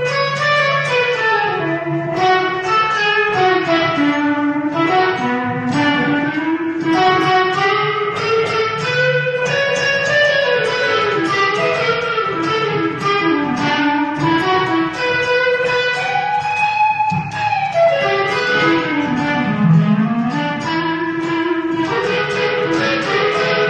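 Electric guitar playing an unaccompanied single-note lead melody, with notes that bend and glide in pitch between held notes.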